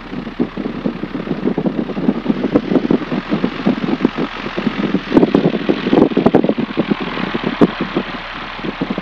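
Light aircraft's piston engine idling with the propeller turning slowly, a continuous uneven popping run that is somewhat louder in the middle.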